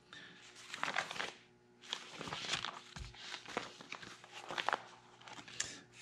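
Plastic sheet protectors in a three-ring binder crinkling and rustling as a page is handled and turned, in a run of uneven crackles and scrapes.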